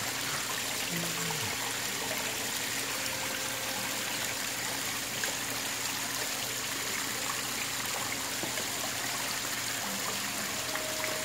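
Steady trickling and splashing of water from a small waterfall spilling into a garden fish pond.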